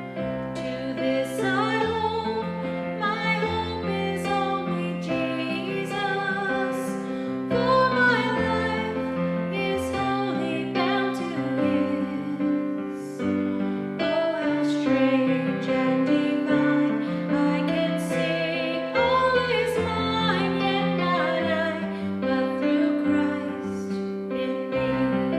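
Music: piano accompanying a woman's singing voice.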